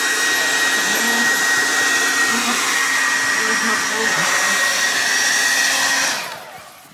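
A steady electric blower motor running with a faint whine, winding down and cutting off about six seconds in.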